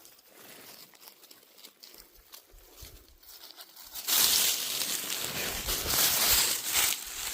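Dry leaf litter crackling faintly, then loud crunching and rustling that starts suddenly about four seconds in.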